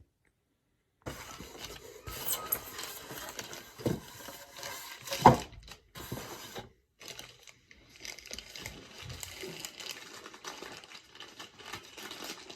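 Lightsaber packaging being handled: plastic and cardboard rustling and crinkling, with a sharper knock about five seconds in.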